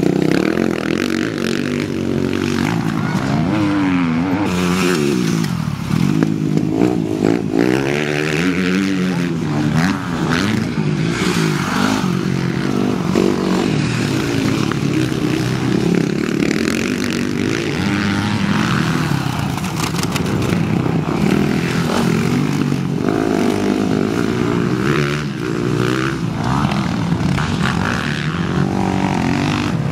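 Motocross dirt bike engines racing, several at once, their pitch rising and falling over and over as the riders open and close the throttle and shift through the gears.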